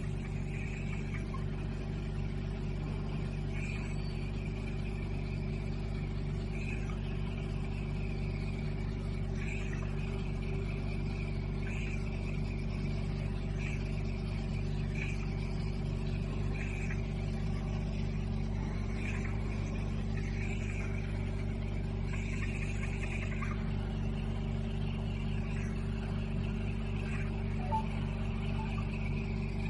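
VelaShape body-contouring machine running its vacuum pump: a steady hum with faint, irregular higher blips over it.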